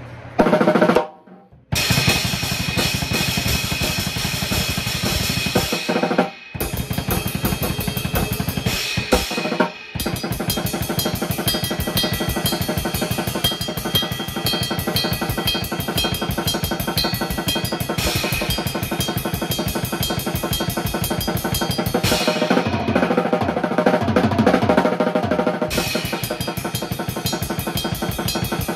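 Drum kit played fast and continuously, with dense strokes and brief stops about 1.5, 6.5 and 10 seconds in.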